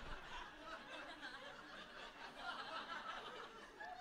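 Faint, scattered chuckles and snickers from an audience, dying away after a laugh.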